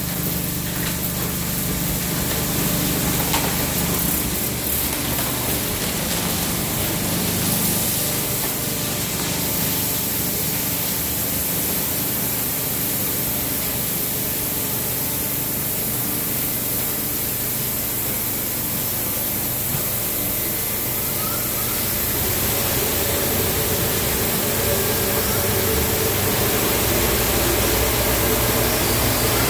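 Automatic car wash running: spinning cloth brushes swishing over a car under a steady hum. From about a third of the way in, water spraying over the car takes over, hissing and getting louder in the last third.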